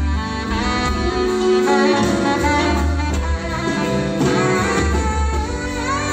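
Live band playing an instrumental passage, a saxophone carrying the melody over bass and drums.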